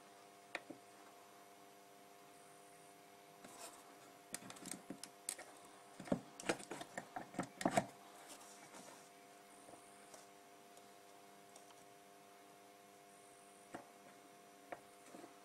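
Light clicks, taps and small scrapes of a soldering iron and solder wire worked against a circuit board's joints, bunched between about four and eight seconds in, with a few single ticks later, over a faint steady hum.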